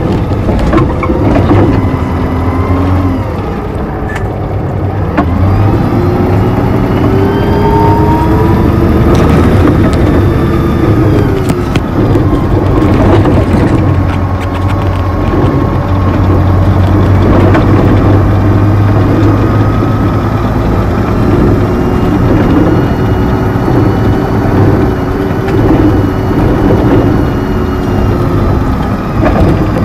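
Neoplan N4426/3 Centroliner double-decker bus heard close up at its gearbox hatch: the Voith DIWA 864.3E automatic gearbox whines over the low drone of the Mercedes-Benz OM 501 LA V6 diesel. The whine's pitch climbs and drops several times as the bus drives.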